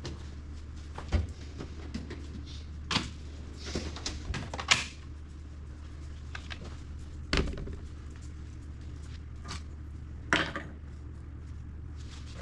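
Wire cutters snipping off chewed, damaged wire ends from a car wiring harness: a handful of sharp, separate clicks a few seconds apart, with smaller handling clicks between, over a steady low hum.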